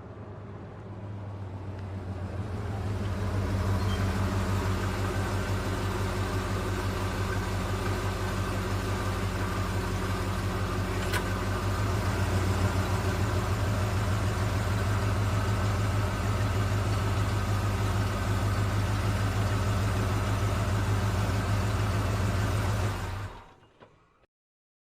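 Engine running steadily with a low hum, swelling over the first few seconds and cutting off abruptly near the end.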